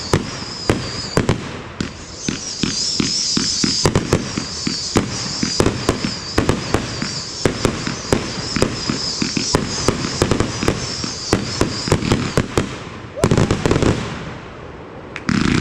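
Fireworks going off in a rapid, dense barrage of bangs and crackles, several a second. The barrage thins out about thirteen seconds in, after a louder burst.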